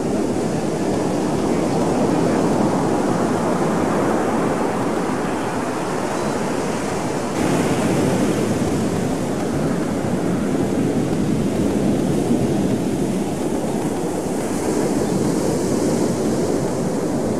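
Ocean surf rushing steadily on the beach, mixed with wind on the camcorder microphone.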